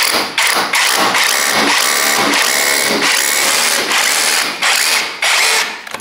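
A CAT cordless SDS drill runs loudly and steadily as it bores up through the top of a wall chase into the ceiling space. It stops near the end.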